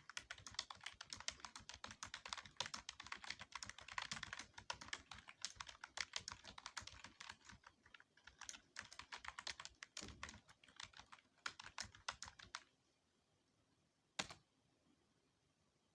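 Fast typing on a computer keyboard, a dense run of irregular key clicks during a timed typing test. The typing stops about three-quarters of the way in, followed a moment later by one louder single keystroke.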